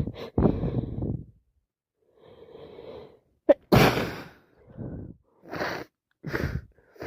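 A person sneezing over and over in a fit, the sneezes broken by quick breaths. The loudest sneeze comes a little past halfway, followed by several shorter ones.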